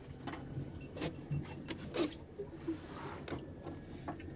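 Scattered knocks and clicks of a large red grouper being handled and laid out on a measuring board on a boat deck, with a short rushing hiss about three seconds in.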